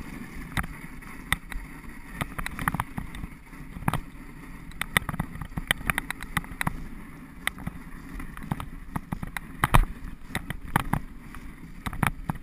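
Wooden sled gliding over snow behind a pair of huskies: a steady rushing hiss of the runners, broken by many irregular sharp knocks and clicks as the sled jolts along the trail.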